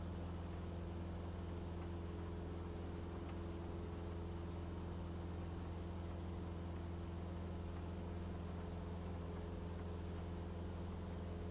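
Cessna 150's four-cylinder Continental O-200 engine and propeller droning steadily at climb power, heard from inside the cabin.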